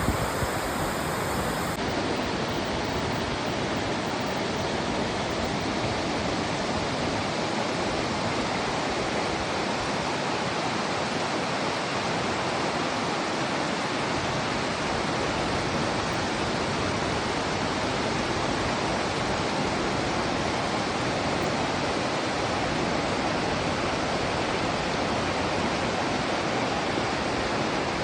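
Mountain stream rushing steadily below a waterfall: a continuous, even noise of fast-running water with no breaks.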